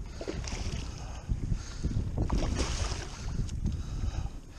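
Wind buffeting the microphone over water lapping at the kayak hull, with brief splashes from a hooked striped bass thrashing at the surface.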